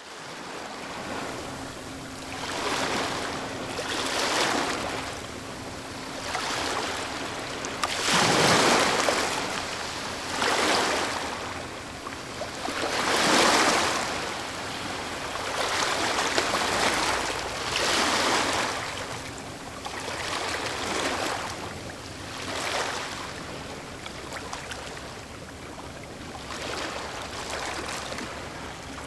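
Ocean waves, one surge of surf after another every two seconds or so, with a few bigger ones.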